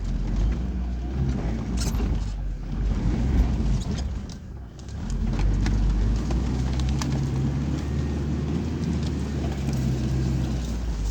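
UAZ Patriot SUV's engine running as the vehicle moves, easing off briefly about halfway through, then running steadily. No knocking comes from the transmission, which the owner takes as a sign it is sound. A sharp click comes at the very end.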